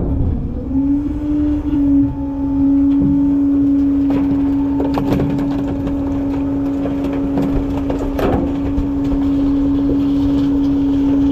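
Front-load garbage truck's packer running: the engine and hydraulics hold a steady hum-like whine over a low rumble while the blade compacts trash in the hopper. A few sharp cracks and snaps from the load being crushed, the clearest about five and eight seconds in.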